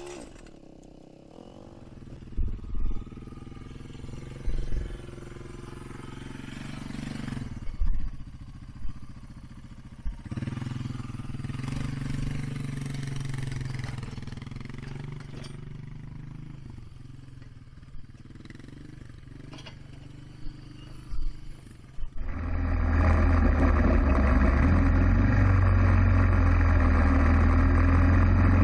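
ATV engine running at low speed as it tows a homemade box blade over hard-packed dirt, swelling and fading as the machine circles, with a few short knocks. About 22 seconds in it turns suddenly much louder and steadier, heard close up at the blade.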